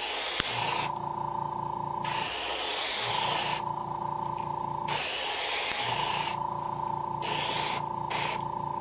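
Handheld hair dryer running on a freshly airbrushed fishing lure to heat-set the paint: a steady motor whine under a rush of air that cuts in and out every second or so as the dryer is moved. It switches off near the end.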